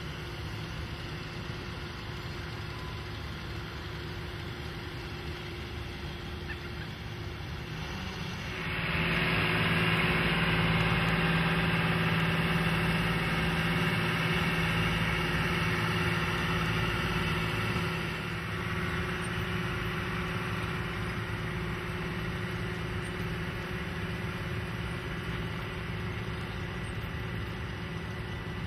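A steady mechanical hum, like a running engine, that swells suddenly about eight and a half seconds in and eases back down around eighteen seconds.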